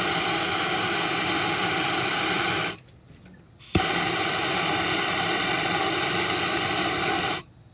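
Handheld plumbing torch flame hissing steadily while it heats a copper pipe joint for soldering. It shuts off almost three seconds in, is relit with a sharp igniter click about a second later, and burns again until just before the end.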